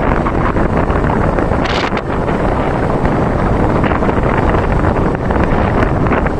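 Steady, loud wind buffeting the microphone while travelling along a road, with a stronger gust a little before two seconds in.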